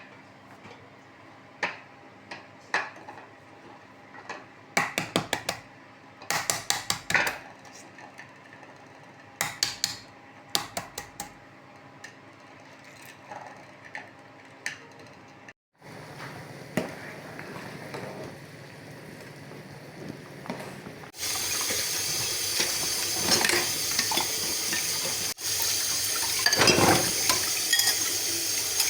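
Dishes and cutlery clinking and rattling in short clusters. After a break there is a low steady hum. About two-thirds of the way through, a kitchen tap starts running strongly into a sink.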